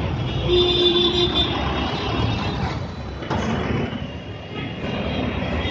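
Busy road traffic: buses, cars and motorbikes running past close by, with a vehicle horn sounding briefly about half a second in.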